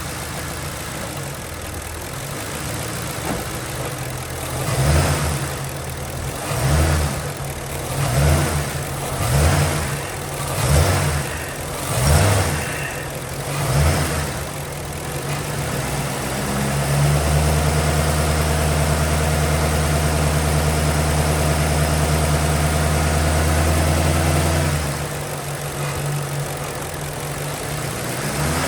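The 2007 Crown Victoria's 4.6-litre V8 idles, is blipped up briefly about seven times in a row, then is held at a steady higher speed for about eight seconds before dropping back to idle. The throttle is being worked to bring out a passenger-side rattle that occurs only when the gas pedal is pressed.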